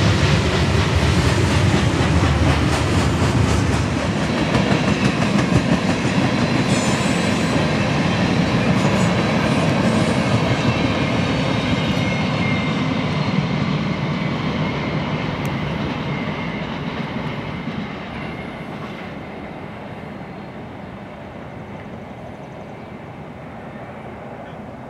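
Freight train's cars rolling past on the rails, the wheels clattering steadily, then growing quieter through the second half as the train moves away.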